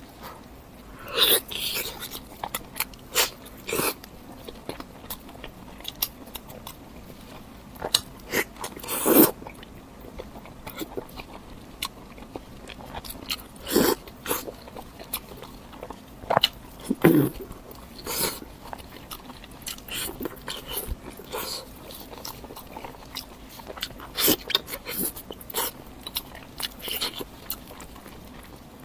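A person biting and chewing food close to the microphone: irregular crunches and wet mouth sounds, with louder bites every few seconds.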